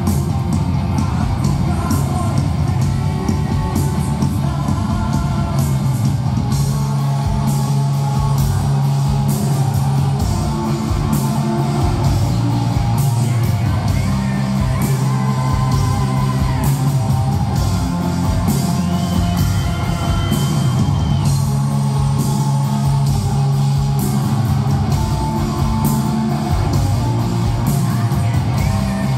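Rock band playing live in a large hall: lead vocals over electric guitars, bass, drums and keyboards at a steady, loud level.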